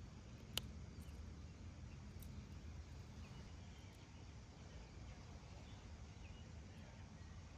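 Quiet lakeside outdoor ambience: a faint steady low rumble, one sharp click about half a second in, and a few faint high chirps.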